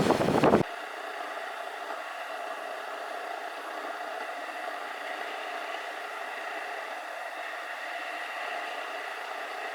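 Wind buffeting the microphone, cut off abruptly well under a second in, leaving a steady, even hiss with no low rumble.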